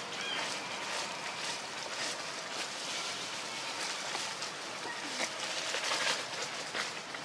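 Dry fallen leaves rustling and crackling as macaques move across the leaf litter, a steady run of many small crackles.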